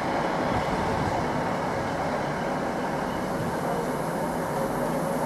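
Northern Class 319 electric multiple unit running past along the platform, a steady rumble of wheels on rail with a faint high whine from about three seconds in.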